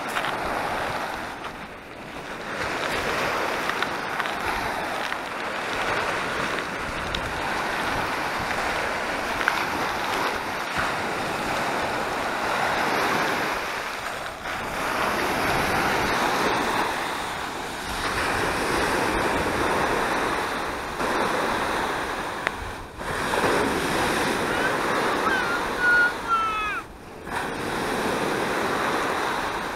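Small waves of the Sea of Azov breaking and washing up a sandy beach, the surf swelling and easing every few seconds.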